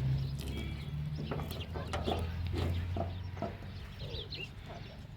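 Chickens clucking in short, scattered calls over a low steady hum that fades about three and a half seconds in.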